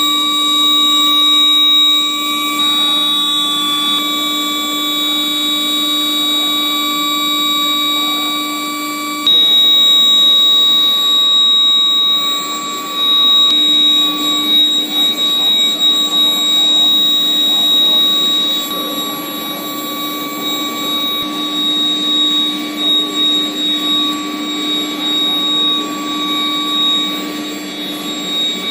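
Induction heating line for quenching and tempering steel rebar running, giving a steady electrical whine of several held tones, the highest the strongest, over a steady hiss. It gets louder about nine seconds in.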